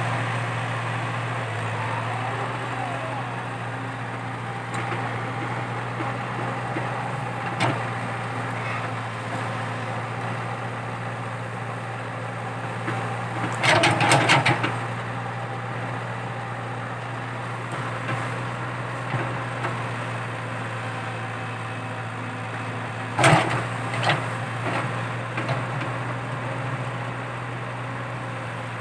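Komatsu PC80 excavator's diesel engine running steadily. A quick cluster of knocks comes about halfway through, and a loud knock followed by a few smaller ones comes later.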